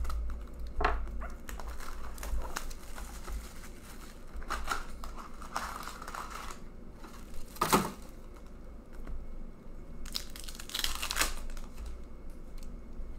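Crinkling and tearing of wrapper as a hockey card hobby box is cut open and a foil card pack is torn open, with a sharp rip a little past halfway and a longer stretch of tearing and crinkling about three-quarters of the way through.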